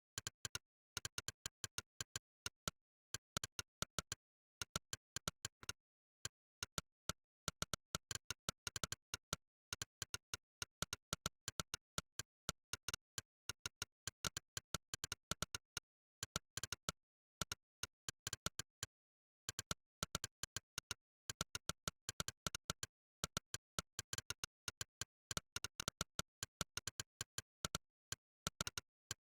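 Monkeytype's synthetic 'click' keystroke sound, one sharp click per key pressed, in rapid runs of many clicks a second with brief pauses between bursts of typing, over dead silence.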